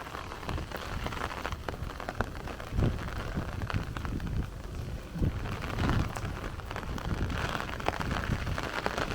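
Heavy rain falling and drumming on an umbrella overhead, with many sharp drop hits and a few low wind gusts buffeting the microphone.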